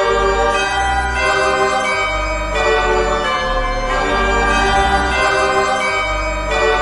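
Intro music of held organ chords that change every second or so over a low bass.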